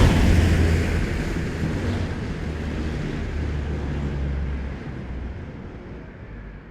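Combat Vehicle 90 tracked armoured vehicle moving away after passing close, its diesel engine's low, steady rumble fading out.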